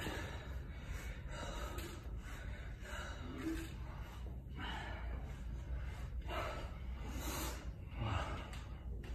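A person breathing hard in deep, gasping breaths about every second and a half, winded from kettlebell lifting, over a steady low hum.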